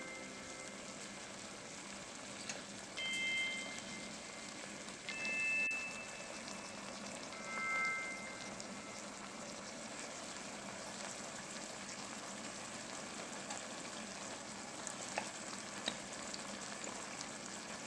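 Onions, tomatoes and jalapeños frying in a pot: a faint, steady sizzle. Three short, high chime-like tones sound over it in the first half.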